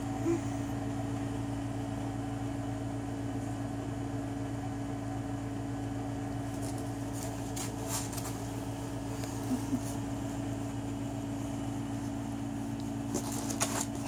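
Steady mechanical hum of a household appliance, such as a fan or air conditioner running in the room. A few brief rustles come about halfway through and again near the end as the dog shifts on the bed.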